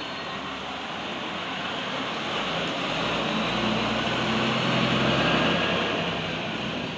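Engine noise of a passing vehicle, a wide noise with a low engine hum that grows to its loudest about five seconds in, then fades.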